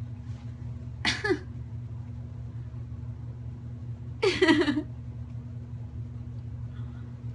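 Two short voice-like sounds, a brief one about a second in and a louder, longer one at about four seconds, over a steady low hum.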